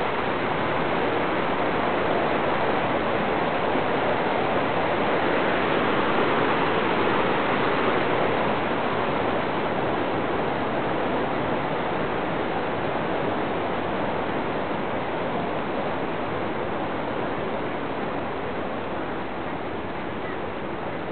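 Rushing stream water running over rocks below a footbridge, a steady wash that swells a little about a third of the way in and then slowly fades.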